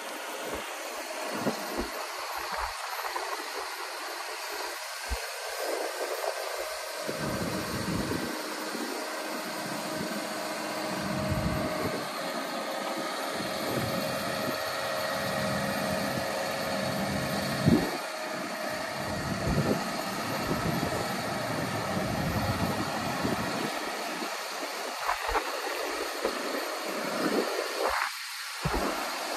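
Caterpillar 559C knuckle boom log loader's diesel engine running under hydraulic load as the boom and grapple swing down and back up, with a steady tone through the middle.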